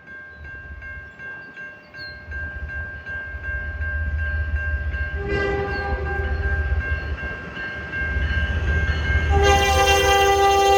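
CN locomotive horn sounding a multi-note chord, a first blast about five seconds in and a louder blast near the end, over level-crossing bells dinging steadily and a low rumble. An odd horn whose type the railfan can't place, which he calls a questionable one.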